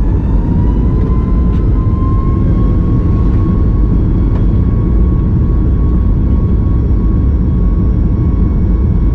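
Boeing 737 MAX 8's CFM LEAP-1B turbofan engines, heard from inside the cabin, spooling up to takeoff thrust. Their whine finishes rising in the first second or two and then holds steady over a loud, deep rumble.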